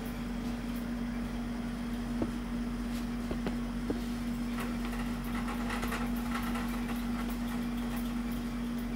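Steady low hum on one even tone, with a few faint clicks between about two and four seconds in.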